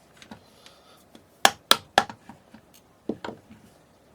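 Sharp knocks and clicks of hard objects being handled: three loud knocks in quick succession about a second and a half in, then a few lighter clicks around three seconds.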